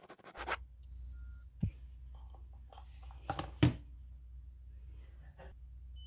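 A ghd hair straightener's electronic chime, a quick run of high beeps about a second in and again at the end, with two knocks as the straightener is handled, over a low hum. Pen scratching on paper is heard briefly at the very start.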